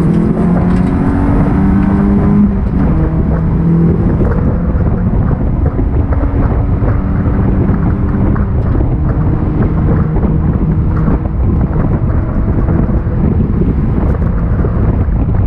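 Race car engine accelerating hard under full throttle, heard from inside the stripped cabin, mixed with heavy wind and road noise. The engine note rises, drops about two and a half seconds in, and is then mostly buried under wind and road noise.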